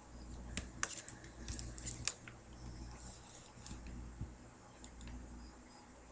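Handling noise close to the microphone: scattered faint clicks and scratches, most of them in the first two seconds, over a low steady hum.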